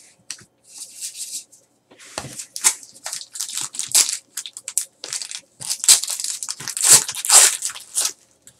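A foil trading-card pack wrapper being torn open and crinkled by hand: a dense run of crackles starting about two seconds in and loudest near the end.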